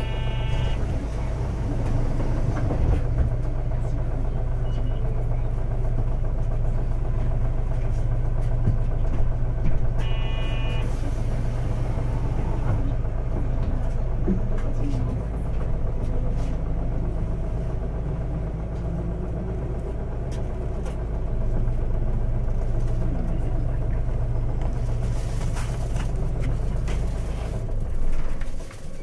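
Running sound inside a 2012 Isuzu Erga QKG-LV234L3 city bus, heard through open windows: its four-cylinder turbo-diesel hums steadily as the bus stops at a stop and pulls away again. Two short chimes sound, one near the start and one about ten seconds in.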